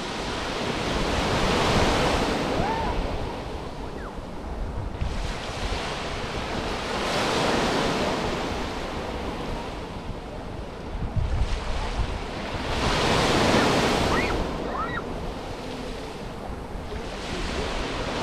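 Small Mediterranean waves breaking and washing up a sandy beach, swelling and fading about every five to six seconds, with wind buffeting the microphone.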